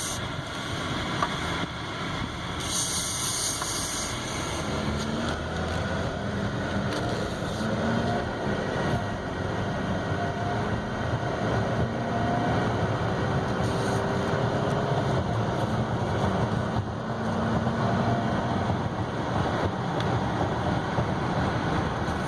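Inside the cabin of a 2016 Buick Envision on the move: steady road and tyre noise with a faint engine hum that glides slowly up and down in pitch, growing a little louder over the stretch.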